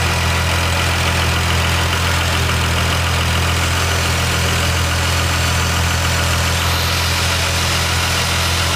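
Nissan 370Z's 3.7-litre V6, fitted with a twin-turbo kit, idling steadily on its first start after the install.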